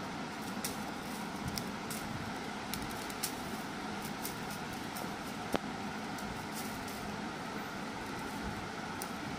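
Thin dry broom sticks and a plastic binding strip ticking and clicking lightly and irregularly as they are handled and woven, one sharper click about halfway through. A steady background hum runs under them.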